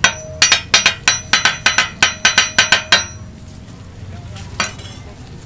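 A metal spatula striking a flat steel griddle: a fast run of about fifteen sharp, ringing metallic clacks over about three seconds, then a single further clack near the end.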